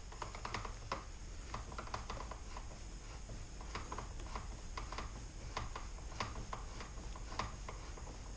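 Faint, irregular small clicks and taps of a T20 Torx bit working the screw that locks the door handle, inside the access hole in the door.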